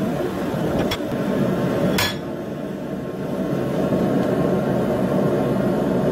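Two sharp metal-on-metal clinks of blacksmithing tools against hot steel stock, about one and two seconds in, the second louder and briefly ringing. Under them runs a steady low rushing noise.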